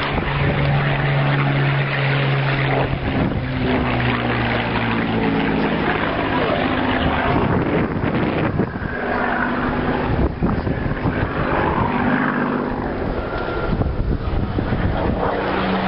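Propeller aircraft engines droning steadily, their pitch shifting a few times, over a noisy rushing background.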